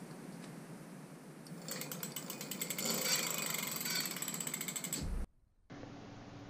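A 48V 1200W rear hub motor of an e-bike conversion kit powered up and spinning the rear wheel on its first test, a mechanical whir with rapid ratchet-like clicking from the freewheel. It starts about a second and a half in, builds for a second or so, holds steady and cuts off sharply about five seconds in.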